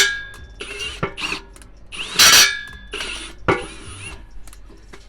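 Several sharp metal clanks of tools against steel brackets, each leaving a ringing after it, the loudest about two seconds in.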